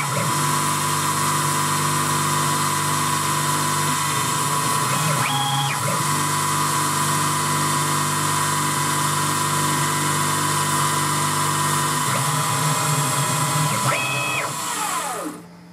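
Boxford 190VMCi CNC milling machine running a drilling cycle: the spindle motor runs with a steady whine, broken twice, about five seconds in and near the end, by short rising-and-falling whines as the axes move. The machine noise dies away just before the end as the spindle stops.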